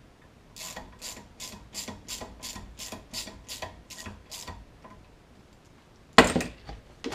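Hand ratchet wrench worked back and forth in short, even strokes, about three a second, snugging down the primary clutch cover bolts. It stops, and about six seconds in a tool clatters loudly onto the workbench, with a smaller knock near the end.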